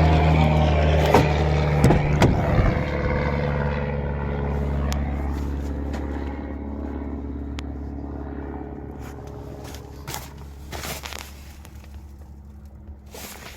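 A motor vehicle's engine running steadily and fading away over several seconds, with scattered clicks and scraping handling noises.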